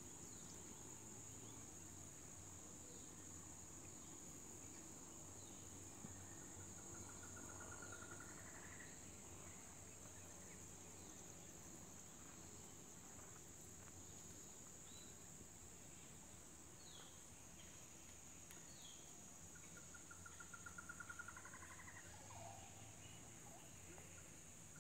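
Faint, steady high-pitched insect chorus, with a rapid trilling call twice, about eight seconds in and near the end, and a few short chirps.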